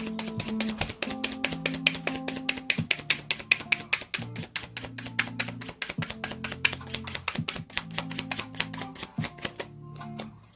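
Background music: held low notes changing in steps under a fast, even ticking beat, about seven ticks a second. The ticking drops out shortly before the end.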